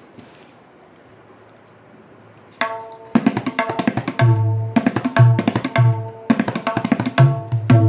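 A new 6-inch wooden tabla dayan, tuned to A sharp, played together with a metal bayan. After a quiet start, a run of quick ringing dayan strokes begins about two and a half seconds in, and deep booming bayan strokes join about a second later.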